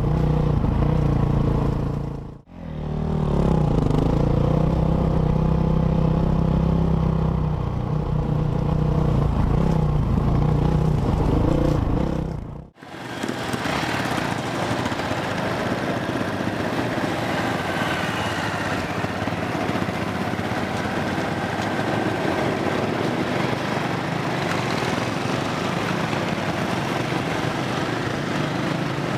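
Motorcycle engine running under way, its pitch shifting with the throttle, heard across short clips that end abruptly. From about thirteen seconds in, a steady rush of wind and road noise with the engine faint beneath it.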